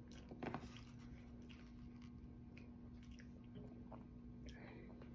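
Faint chewing of a bread roll (pandesal), with small soft mouth clicks and one brief louder sound about half a second in, over a faint steady hum.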